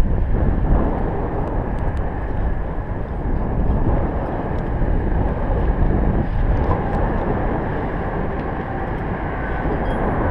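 Steady wind rumble buffeting an action camera's microphone high on a steel tower, with a few faint clicks.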